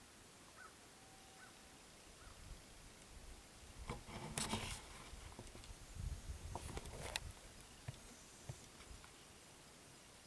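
Quiet outdoor background with a few faint short bird calls near the start. About four seconds in and again about six seconds in come two brief bursts of rustling and handling noise close to the microphone.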